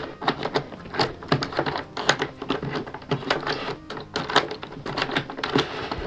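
Wooden sliding pieces of a Jean-Claude Constantin Steuerrad puzzle box clicking and knocking as they are pushed around by hand: quick, irregular clicks, several a second.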